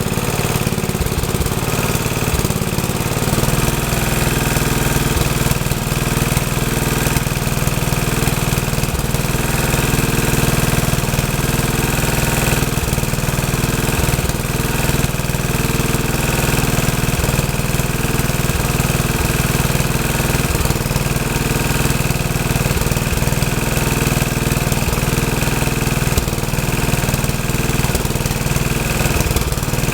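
Rebuilt Troy-Bilt tiller's small gasoline engine running steadily, with a shift in its low hum about three seconds in, then an even run.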